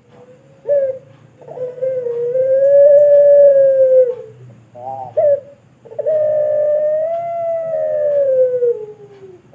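A puter pelung dove, a ringneck dove bred for its long coo, cooing: a short opening note, then a long drawn-out coo of about two and a half seconds, a short double note, and a second long coo of over three seconds that slides down in pitch at its end.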